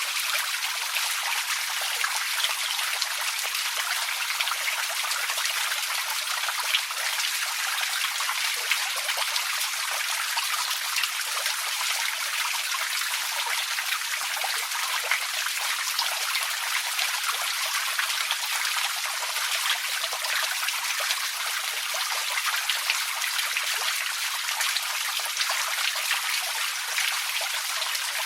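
Small forest creek trickling and babbling steadily over stones, a continuous high splashing with many small droplet sounds.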